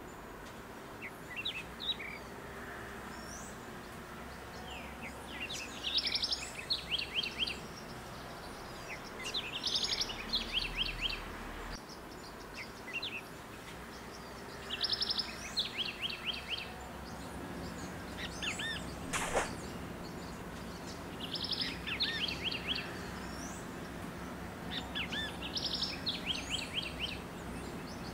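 A wild songbird repeatedly singing short phrases of rapid, stuttering high notes every few seconds, over a steady background hiss of outdoor ambience. One sharp click about two-thirds of the way through.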